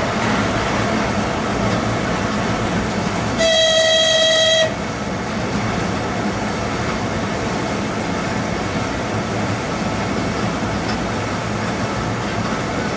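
A train running at speed along the track, heard from on board as a steady rumble. About three and a half seconds in there is one steady-pitched train horn blast, a little over a second long.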